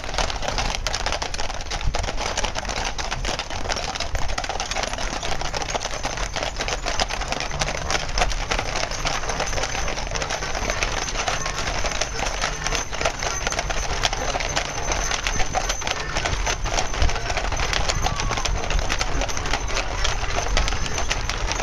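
A team of Clydesdale horses walking past on pavement. Their hooves clip-clop in a dense, overlapping clatter of rapid hoofbeats.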